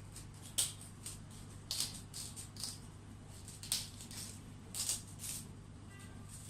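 Knife scraping and gouging out the hard inside of a black radish: a string of short, irregular scrapes over a faint steady low hum.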